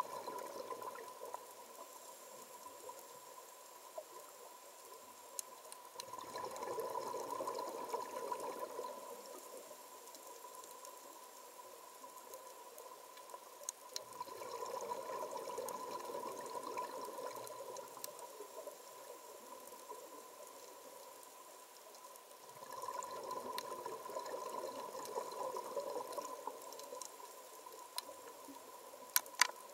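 Underwater recording of a scuba diver's exhaled bubbles from the regulator, swelling up three times with quieter pauses between breaths. Scattered sharp clicks and a steady high hum run underneath.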